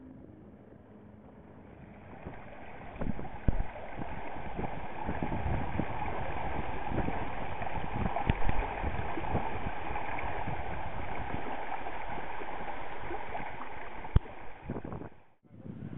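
Water rushing and splashing along a small sailboat's hull as it sails through a chop, with wind buffeting the microphone in low thumps. It grows louder about two seconds in and drops out briefly near the end.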